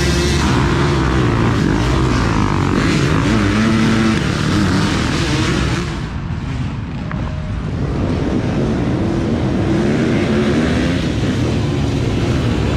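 Dirt bike engines revving hard as a row of riders launches off the start line, several bikes at once with pitches rising and wavering. The sound drops away briefly near the middle, then another group of bikes is heard accelerating away.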